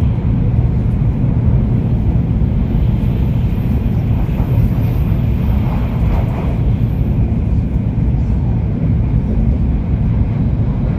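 Steady low rumble of a Joetsu Shinkansen bullet train running at speed, heard from inside the passenger cabin.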